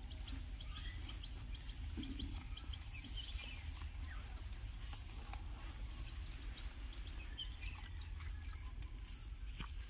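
Faint outdoor sounds: scattered short bird chirps over a steady low rumble.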